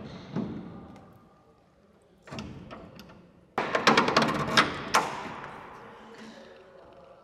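Metal fittings clicking and knocking as an ultralight's wing is pinned to its fuselage attachment bracket. A few light clicks come first, then a louder spell of rapid metallic rattling and knocks from about three and a half to five seconds in, ringing on in a large hangar.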